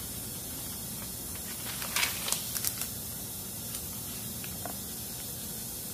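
Thin Bible pages being turned by hand: a short papery rustle about two seconds in, with a few faint ticks after, over a steady background hiss.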